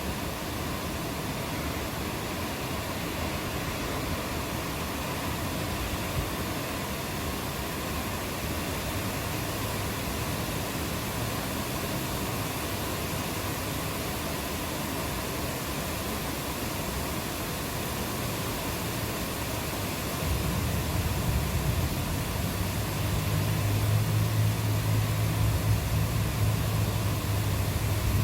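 Steady rain hiss. About twenty seconds in, a low rumble comes in under it and grows louder toward the end.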